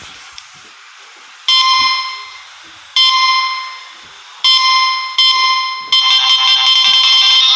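Mobile phone ringtone of electronic bell-like chimes. The ringing strikes start about 1.5 seconds apart, come faster, and run together into a continuous ring near the end. A soft hiss comes first, before the first strike.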